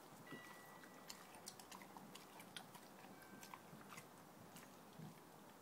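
A dog chewing and biting at a large raw bone-in steak: faint, irregular clicks and crunches of teeth on meat and bone.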